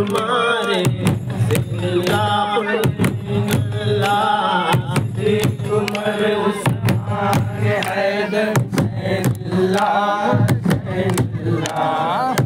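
Men chanting a devotional ratib together, over a steady beat of sharp strikes on large barrel drums beaten with sticks and hands clapping in time.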